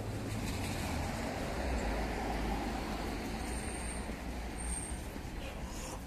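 A motor vehicle driving past: a low engine rumble and tyre noise swell over the first couple of seconds and then fade. Two short, high squeaks come about halfway through.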